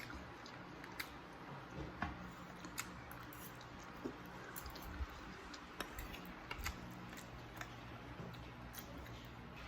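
Quiet chewing and eating sounds of a meal of pancit canton noodles, with scattered small clicks.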